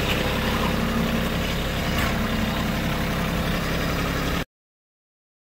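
Kubota compact tractor's diesel engine running steadily while the front loader works its grapple. The sound cuts off suddenly about four and a half seconds in.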